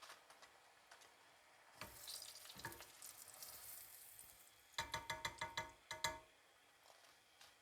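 Faint sizzle of oil frying in a pan, then a quick run of about eight light, ringing taps.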